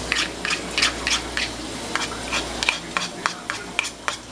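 A metal serving spoon scraping and tapping against a metal pot and paper plates while food is dished out: a run of short scrapes and clicks, a few a second, coming quicker and sharper in the second half.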